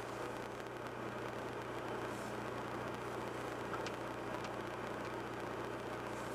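A car engine idling steadily, heard from inside the cabin while the car stands still in traffic, with a low, even hum. Two faint clicks come a little past halfway.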